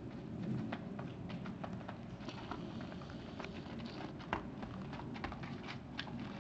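Giraffes' hooves on packed dirt as they run: an irregular patter of light taps and clops, busiest in the middle, over a low steady rumble.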